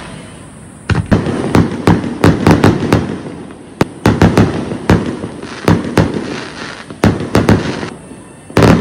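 Fireworks display: a rapid, irregular string of about twenty sharp bangs, starting about a second in, with crackle and echo trailing each report.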